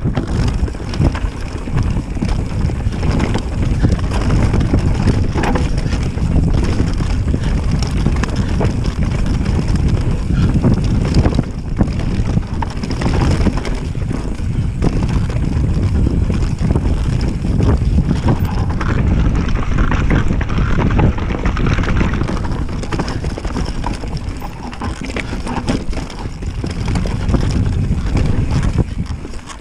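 Wind buffeting a camera microphone over tyres rolling on rough dirt singletrack, with the frequent rattles and knocks of a mountain bike on a fast downhill descent.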